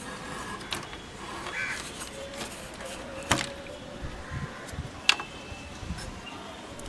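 Scattered knocks, clicks and scuffs of the valve radio's metal chassis being handled and worked out of its cabinet, with two sharp clicks about halfway and about three quarters of the way through.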